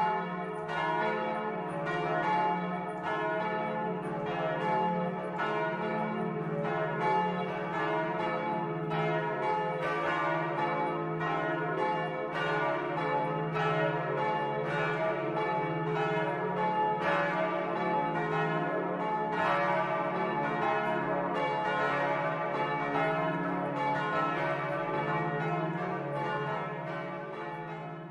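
Several church bells swinging and ringing together in a peal, their clappers striking over and over so the strokes overlap into a dense, steady clang. The ringing fades away near the end.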